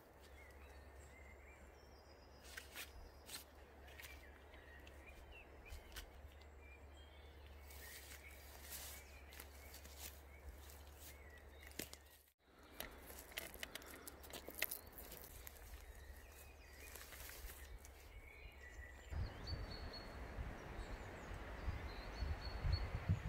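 Quiet woodland ambience with occasional bird chirps and scattered rustles and clicks from handling a hammock and its suspension cords. Near the end a low rumble sets in.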